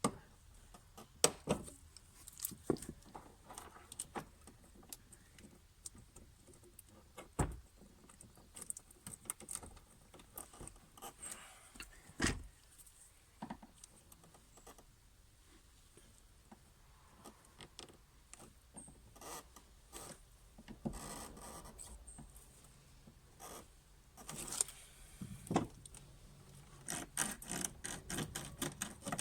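Hand tools and small metal parts clinking, scraping and knocking, with scattered sharp clicks and a quicker run of clicks near the end, during work on a car's fuel pump.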